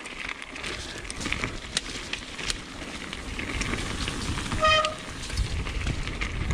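Mountain bike tyres rolling over a loose stony trail, with clicks and rattles from the stones and the bike, and wind rumbling on the chest-mounted microphone, stronger in the second half. Partway through, a short squeal with a clear pitch is the loudest moment.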